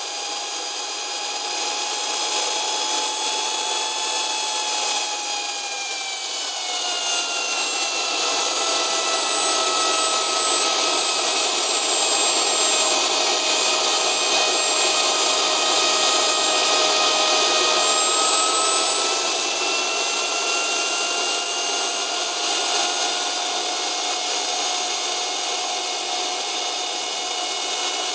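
Small homemade jet engine running on a test stand, a loud steady whine over a rushing hiss. The whine drops in pitch about six seconds in, then holds and creeps back up in the second half.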